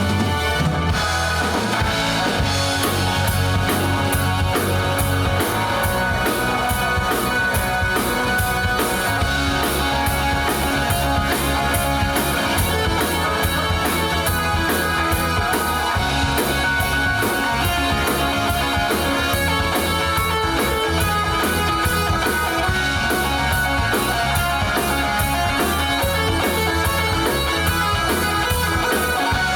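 Rock music with guitar and drums playing from a push-button radio; the music changes character about a second in, then runs on with a steady beat.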